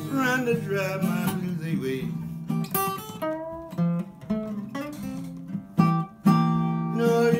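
Acoustic blues guitar playing, picked and strummed, with some held notes wavering in pitch.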